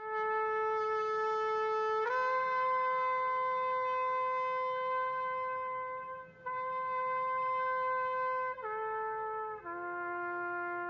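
Background music: a solo brass instrument playing a slow melody of about five long, held notes.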